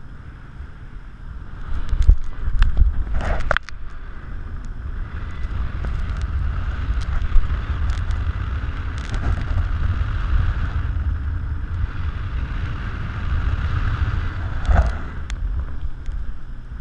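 Wind buffeting the camera's microphone high up on a parasail: a heavy, rumbling rush that grows louder about two seconds in. A few sharp knocks and rattles come around three seconds in and again near the end.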